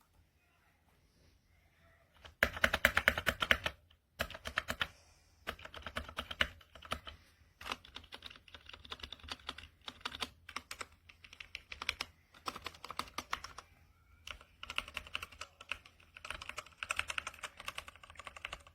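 Typing on an RK Royal Kludge RK61 60% mechanical keyboard: rapid key clicks in bursts, with the fastest and loudest run about two seconds in, then uneven stretches of typing with short pauses. The reviewer thinks the switches could be a little more lubed.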